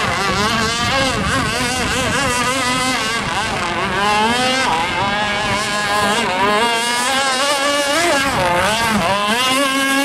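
Mini speedboat's engine running hard, its pitch swinging up and down continually.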